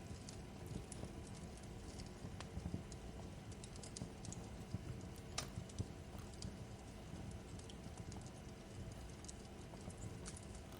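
Wood fire crackling in a fireplace: irregular sharp pops and snaps over a low, steady rumble, with a couple of louder snaps about halfway through.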